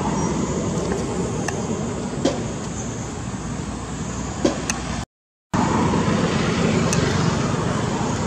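Steady road-traffic and motorbike noise, with a few sharp clicks. The sound drops out completely for about half a second, about five seconds in.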